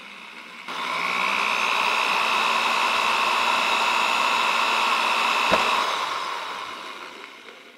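Electric drill with a 2 mm bit drilling a hole through a plastic slot-car track section: a motor whine that runs slowly at first, speeds up about a second in and holds steady, then winds down and fades out over the last two seconds. A brief click partway through.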